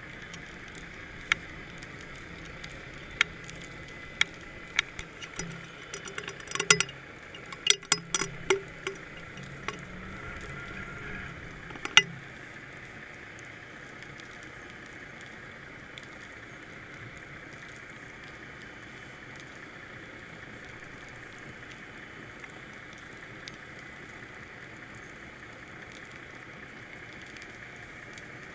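Underwater sound picked up through a GoPro's waterproof housing on a fishing line: a steady hiss, with a low hum and a scatter of sharp clicks and knocks that stop about twelve seconds in, the loudest knock at that point.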